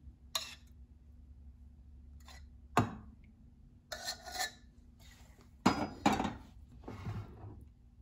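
Metal spoon knocking and scraping against a stainless steel bowl while spooning out tomato sauce, with about four sharp clinks, then scraping as the sauce is spread in a glass baking dish.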